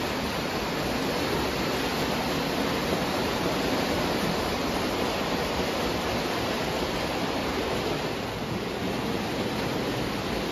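Lionel O gauge toy trains running on three-rail tubular track: a steady, even rumble of wheels and motors from more than one train at once.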